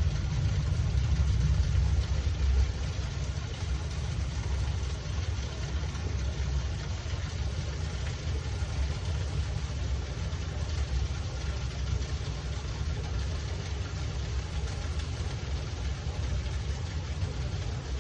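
Running water from a small waterfall or stream: a steady rushing over a strong low rumble, a little louder in the first couple of seconds.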